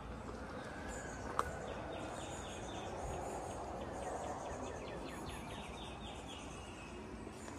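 Outdoor ambience with runs of rapid, high chirps, about five a second, coming and going over a steady background hiss. A single sharp click sounds about a second and a half in.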